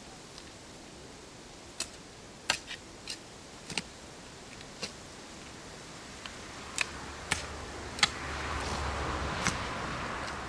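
Steel spade digging into damp clay soil: irregular sharp clinks and knocks as the blade strikes and levers the earth, with a rougher scraping sound building near the end.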